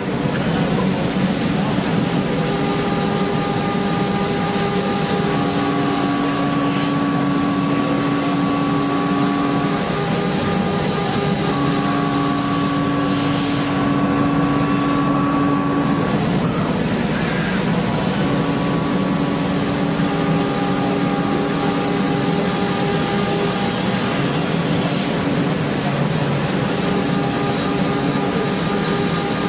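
Steady machine-shop noise of CNC machining: a dense hiss with machine tones that start and stop every few seconds.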